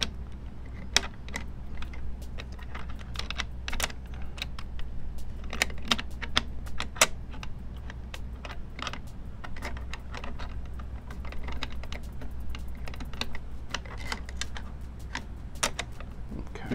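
Small steel parts of a .22 LR conversion kit clicking and scraping in an AKM's stamped receiver as the recoil spring assembly is worked into place: irregular light clicks, often several a second, over a low steady hum.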